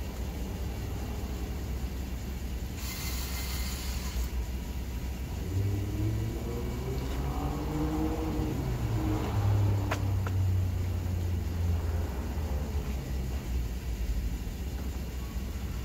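Electric power awning on an Airstream travel trailer retracting: a low motor hum that rises and falls in pitch, loudest a little past halfway, over a steady background rumble. A brief hiss sounds about three seconds in.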